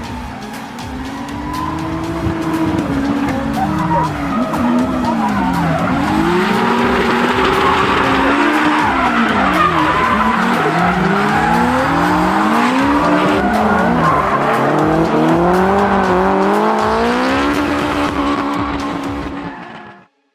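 Two drift cars, one a Nissan Silvia S13 with an RB25DET turbocharged straight-six, drifting in tandem: their engines rev up and down over and over, the pitches crossing, with tyres squealing and skidding. The sound fades in over the first couple of seconds and cuts off sharply just before the end.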